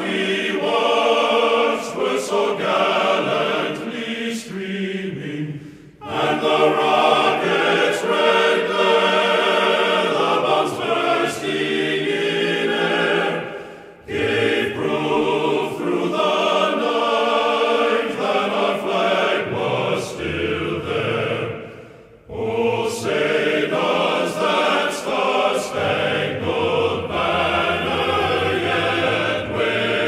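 Choral music: a choir singing in long phrases that pause briefly about every eight seconds.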